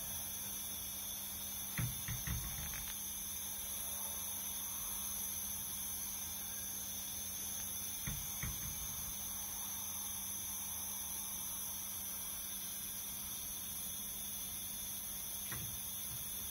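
Steady hiss over a low, even hum from running aquarium equipment, with a few short soft knocks about two seconds in, around eight seconds and near the end.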